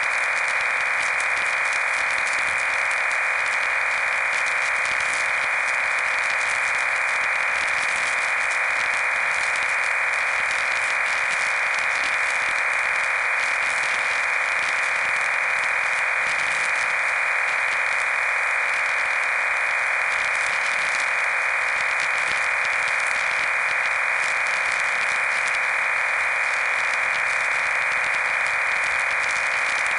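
Steady radio receiver static: an even, mid-pitched hiss with no signal tones in it, as from a receiver waiting on an empty channel.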